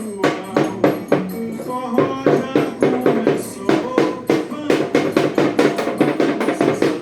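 Music with a quick, steady percussive beat, about four strokes a second, under sustained melody notes.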